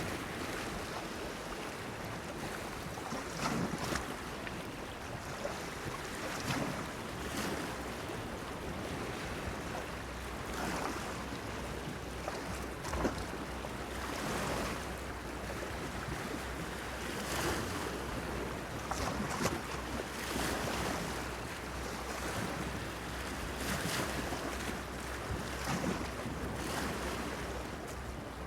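Small waves lapping and splashing against a pier, irregular splashes every second or two over a steady wash of water. A low steady drone comes in about a third of the way through.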